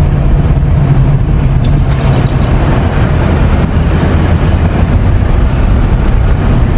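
Road vehicle driving, heard from inside the cabin: a steady low engine hum and road rumble.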